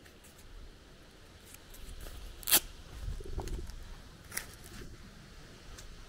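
Footsteps on a dirt path with low rustling and handling noise, broken by a sharp click about two and a half seconds in and a softer one near four and a half seconds.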